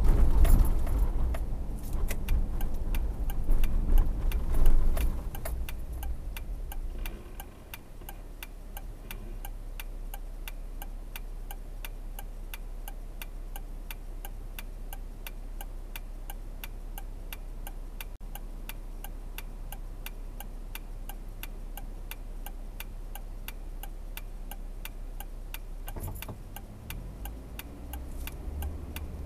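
Car road and engine rumble dying away as the car slows to a stop. It then idles quietly while the turn signal ticks at an even rate, and the engine and road noise rise again near the end as it pulls away.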